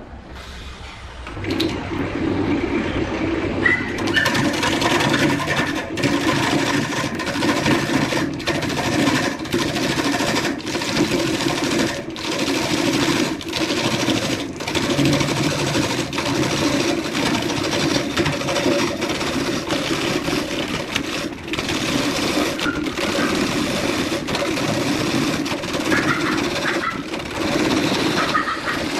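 Wood lathe turning a rough areca palm root while a gouge roughs it down: a continuous loud scraping, chattering cut that starts about a second and a half in and is broken by many brief gaps.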